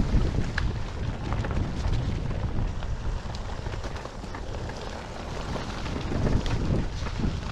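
Mountainboard wheels rolling and rumbling down a wet dirt trail, with wind buffeting the microphone and scattered clicks of grit and small stones. It surges louder near the start and again around six seconds in.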